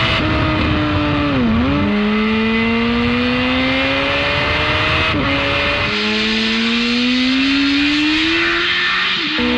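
Yamaha YZF-R1 sportbike's inline-four engine at high revs. The pitch dips about a second and a half in as it slows, then climbs in long rising pulls as it accelerates. The sound jumps abruptly about five and six seconds in, where takes are spliced together.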